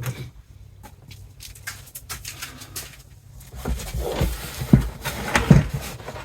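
Hands working on a car's tailgate: scattered clicks and light knocks of plastic and metal parts being handled. About four seconds in comes a louder stretch of thuds and squeaky creaks for a second or two.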